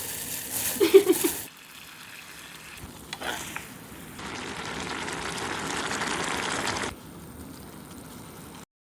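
Stir-fried webfoot octopus (jjukkumi) sizzling in a frying pan while being stirred. The sizzle swells a few seconds in and stops abruptly near seven seconds. There is a short louder sound about a second in.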